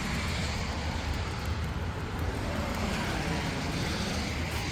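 Steady outdoor background noise: a low rumble with a hiss over it and no distinct events, of the kind traffic makes.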